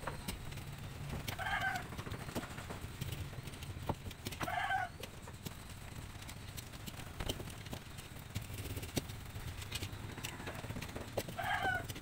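Three short pitched animal calls, each about half a second long: one about a second and a half in, one about four and a half seconds in, and one near the end. Under them run a low steady hum and scattered light taps.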